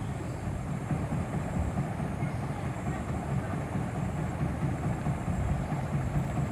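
Steady low background rumble with no distinct events, and a faint thin high whine on top.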